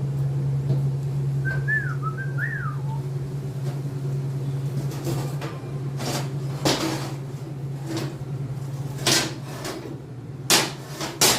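Pieces of steel angle clanking as they are handled and set down, with several sharp metallic clanks in the second half, over a steady low hum. A brief two-note whistle comes about two seconds in.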